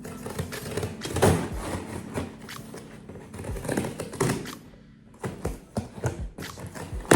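Irregular knocks, taps and rustling as packaging and items are handled and unpacked.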